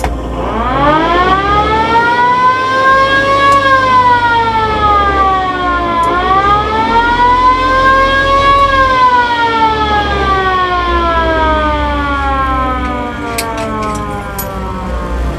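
Original siren of a 1971 VW Type 2 Kombi ambulance wailing: its pitch rises over about three seconds, dips, rises again, then falls slowly.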